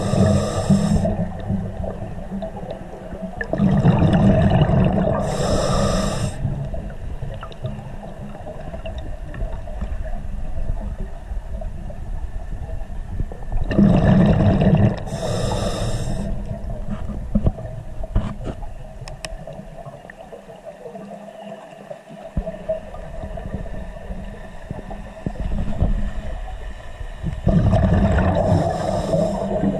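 Scuba diver breathing through a regulator underwater: four breaths, each a hiss from the regulator and a rumble of exhaled bubbles, spaced several seconds apart over a steady low underwater rumble.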